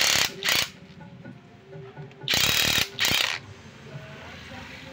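Four short mechanical rattling bursts, ratchet-like, in two pairs about two seconds apart.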